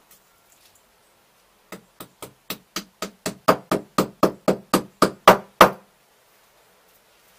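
A screwdriver tapping against a plastered wall in a quick series of about sixteen knocks, roughly four a second, growing louder toward the end.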